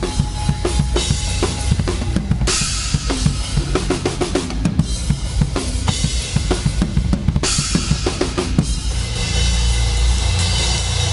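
Rock drum kit played live: rapid kick and snare hits with crash cymbal washes over the band. About nine seconds in, the beat stops and the band holds a sustained ringing wash of sound.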